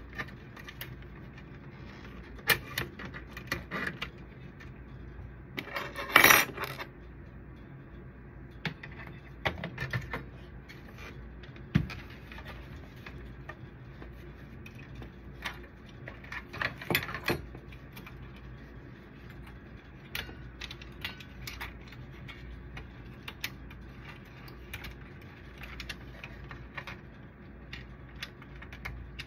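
Plastic and metal parts of a copier drum unit being handled and fitted by hand: scattered clicks, knocks and clatter, loudest about six seconds in and again around the middle. A steady low hum runs underneath.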